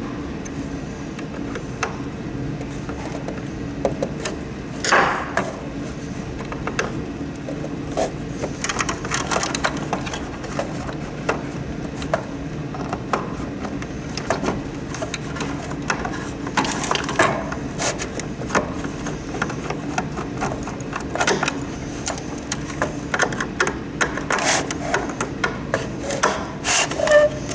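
Plastic parts of a humidifier being handled and unscrewed during a teardown: irregular clicks, knocks and rattles over a steady low hum, with louder clatters about five seconds in, around seventeen seconds and near the end.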